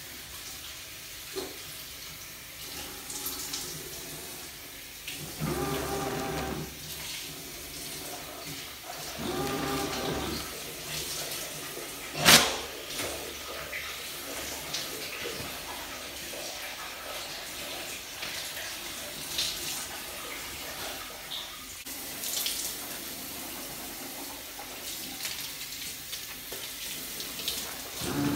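Restroom sounds: water running from a tap, with two spells of a motor whirring, the first about five seconds in and the second near ten seconds, and one sharp bang a little after twelve seconds.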